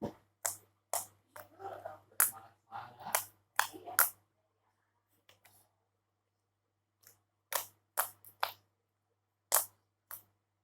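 Slime being worked by hand, giving sharp clicking pops that come in irregular clusters: a busy run for about four seconds, a pause, then a few more pops near the end.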